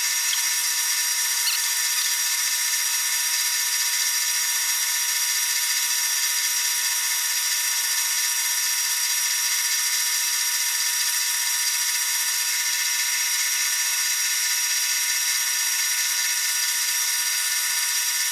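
Power buffing wheel running steadily with a high-pitched whine as it polishes the metal of a stapler head.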